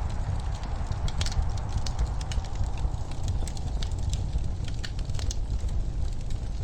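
Wood fire in a fireplace crackling, with many small sharp pops and snaps at irregular intervals over a steady low rumble.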